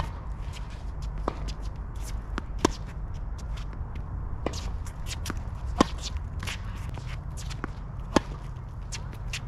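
Tennis balls struck by racquets in a groundstroke rally: sharp pops every second or two, the loudest about three, six and eight seconds in, with shuffling footsteps between shots over a steady low rumble.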